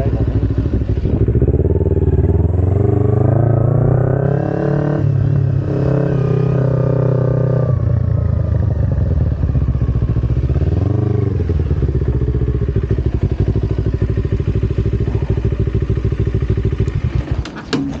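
Kawasaki Ninja 250R's parallel-twin engine running while ridden, the revs rising and falling through gear changes, with one quick rise and fall of the revs about eleven seconds in. It then runs steadily at low revs and falls away near the end.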